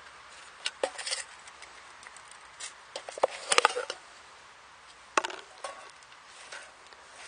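Stainless steel camping mug being handled while its packed contents are lifted out: a handful of light metallic clinks and knocks, busiest around the middle.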